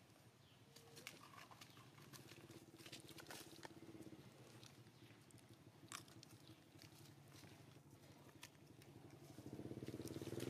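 Faint rustles and small clicks as monkeys move over dry leaves, over a low steady engine hum. The hum grows louder near the end as a motor vehicle approaches.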